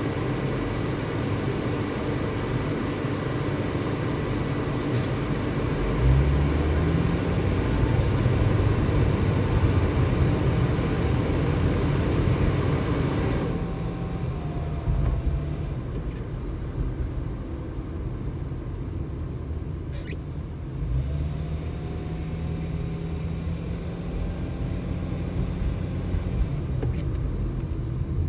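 Car cabin noise while driving: a steady engine and road hum, which turns into a louder low rumble about six seconds in as the car gets moving. About halfway through, the hiss suddenly thins out and the sound turns duller, with a couple of short clicks near the end.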